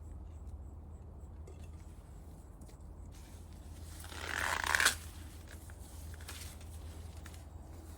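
Sweet corn leaves and husk rustling and tearing as a cob is worked off the stalk by hand: one swelling rustle about a second long, about four seconds in, that stops abruptly.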